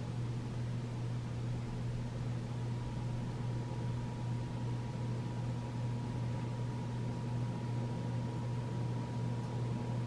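1993 Casablanca Delta II ceiling fan running fast on a solid-state speed control with its pull chain on high: a steady low motor hum under an even rush of air from the blades. With the chain on high the control works well and the fan stays near quiet.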